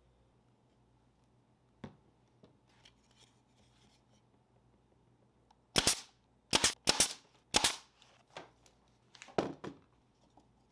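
Pneumatic brad nailer firing about six sharp shots in quick succession about halfway through, tacking glued cedar fence-board panels together; a few quieter knocks follow.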